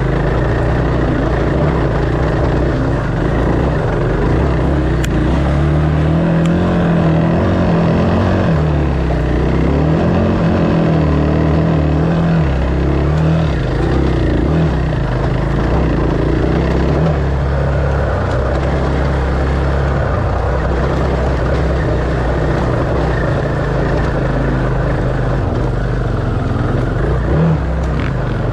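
Dirt bike engine running under varying throttle, its pitch wavering up and down.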